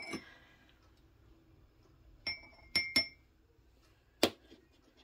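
Metal spoon clinking against the rim of a milk-glass coffee mug: one clink rings out at the start, then three quick clinks about two seconds in, each ringing briefly. A single sharper knock follows near the end.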